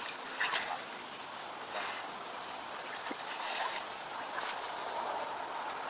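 Water splashing and running, with a few short splashes standing out from a steady wash.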